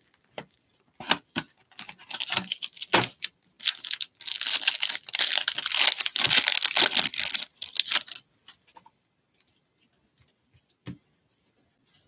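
A trading-card box being opened and its plastic pack wrapper torn and crinkled, a dense crackling from about a second in until about eight seconds in, loudest in the middle. Then a few light clicks and taps as the cards are handled.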